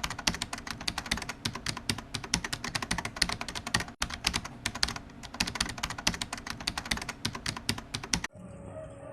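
A rapid, irregular run of sharp clicks, like keyboard typing, broken briefly about four seconds in and cut off abruptly near the end, where a faint steady hum takes over.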